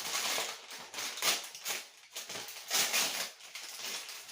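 Medicine packets and boxes being handled and shuffled: an irregular run of crinkling, rustling and light clattering.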